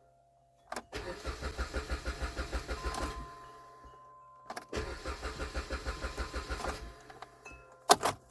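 A 2010 Jeep Compass engine is cranked on the starter twice, about two seconds each time, with an even rapid chug, and it does not catch: a no-start. A couple of sharp clicks follow near the end.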